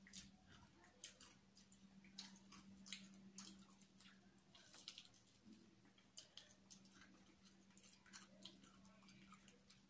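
Faint, irregular wet smacks and small crunchy clicks of fried chicken being bitten and chewed with the mouth open, over a steady low hum.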